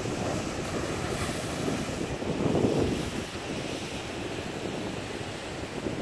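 Ocean waves breaking and washing over coastal rocks, the surge swelling to its loudest about two and a half seconds in and then falling away.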